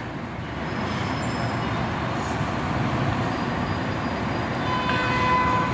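Steady city street traffic noise. Near the end a brief, faint, high steady tone sounds over it, likely from a vehicle.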